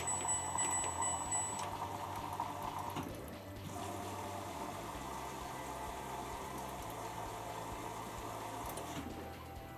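Bush washing machine drawing in water at the start of its cycle: a steady rush of water filling the drum, the sound shifting about three seconds in.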